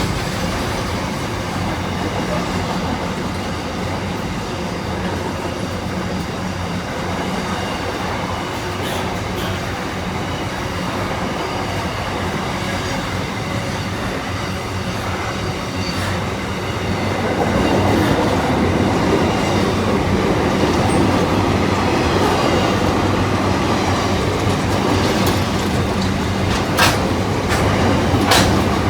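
Diesel-hauled freight train passing: a steady low engine drone under continuous wheel-on-rail noise. It grows louder about two-thirds of the way through, with a few sharp clicks near the end.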